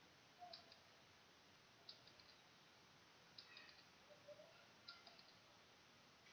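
Faint clicking: four short clusters of quick, sharp clicks about one and a half seconds apart, over a quiet background.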